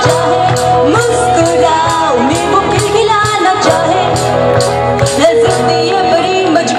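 Live rock band playing loudly: a woman singing over electric guitars and drums, with regular cymbal hits.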